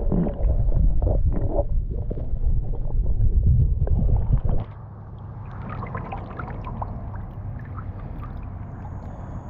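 Sound through a camera held under river water: loud, muffled low noise with knocks and bumps. About four and a half seconds in it drops suddenly as the camera comes out of the water, leaving a quieter sound of water dripping and running with small clicks.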